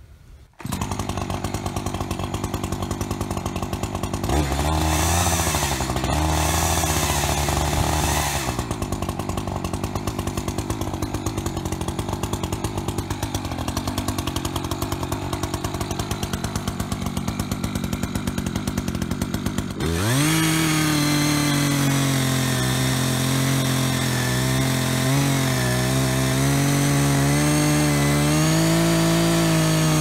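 Timberwolf CS590 two-stroke chainsaw, with a new titanium chain, starting about half a second in. It idles with a brief rev, then about twenty seconds in it opens to full throttle and runs under load as it cuts into a tree trunk.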